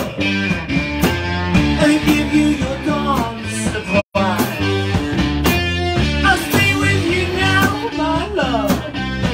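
A live rock band playing loudly, led by guitar, with a voice singing. The sound cuts out for an instant about four seconds in.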